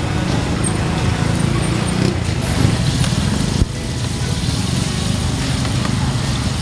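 Steady street traffic: vehicle engines running, with a sharp click about three and a half seconds in.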